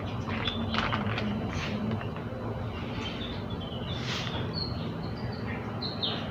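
Outdoor ambience: birds chirping in short high notes, mostly in the second half, over a steady low hum. A few soft clicks and rustles of handling come in the first couple of seconds.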